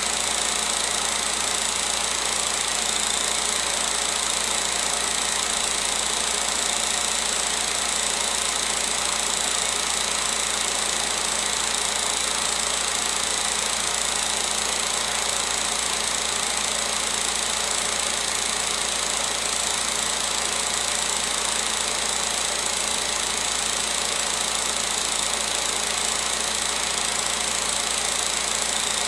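16mm film projector running: a steady mechanical whirr and clatter with a constant high whine, unchanging throughout.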